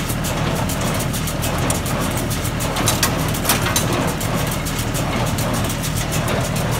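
John Deere 336 square baler running, its mechanism clattering with rapid, regular clicks over a steady engine drone, with a couple of louder knocks about halfway through.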